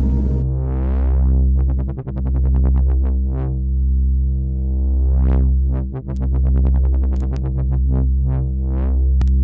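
Electronic music from a VCV Rack software modular synthesizer: a deep bass note that swells and restarts about every four seconds under a sustained chord, with quick plucked notes whose tone brightens and darkens. A hissy noise layer stops about half a second in, and a few sharp clicks come near the end.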